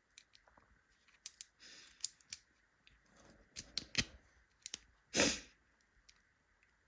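Small metal clicks and taps of tools and brass pins as key pins are worked out of a euro lock cylinder's core, with one louder, longer rattle a little past five seconds in.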